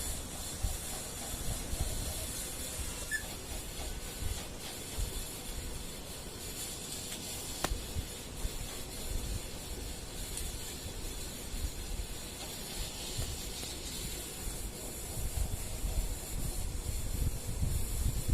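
Steady background hiss with irregular low rumbles and a single sharp click a little before the middle.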